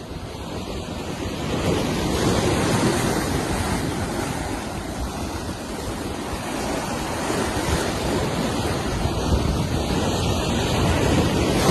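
Ocean surf washing in steadily, with wind buffeting the microphone; the rush swells over the first couple of seconds.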